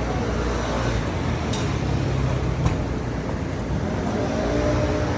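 Steady low rumble of street background noise, with a sharp click about two and a half seconds in.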